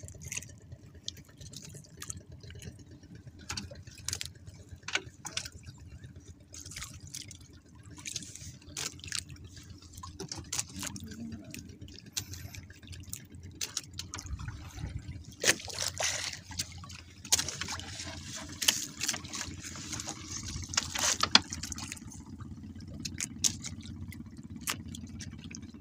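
Water dripping and splashing as a wet gill net is hauled in by hand over the side of a small boat, with scattered sharp knocks and splashes that grow louder in the second half.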